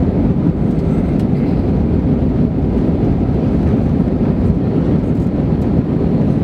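Steady low rumble inside an Airbus A320's cabin during the climb after takeoff: jet engine noise and airflow heard from a window seat over the wing.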